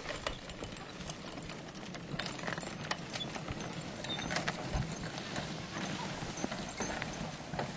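Team of two Percheron draft horses walking on dry dirt, their hooves making irregular clip-clop beats among the clatter of harness and a steel-wheeled forecart, with a drag made of old tyres scraping over the ground.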